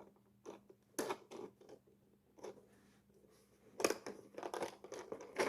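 Small 3D-printed plastic scales being handled and hooked onto one another: scattered light clicks and scratches, coming thicker from about four seconds in.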